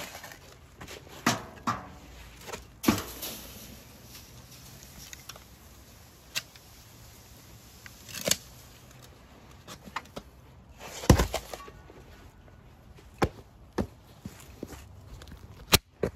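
Hot casting sand poured from a steel flask into a galvanized metal bucket, shaking out a freshly poured aluminium lost foam casting: a steady hiss of running sand with scattered clanks and knocks of the metal containers, the loudest about eleven seconds in.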